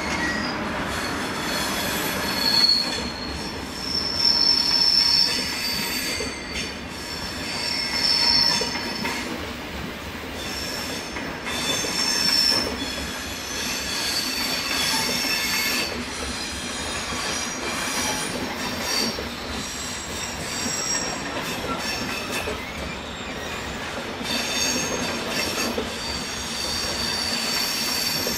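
Railway wheels squealing on the curves and points of a station approach: high-pitched squeals that come and go over a steady rolling rumble, with occasional clicks of wheels over the points.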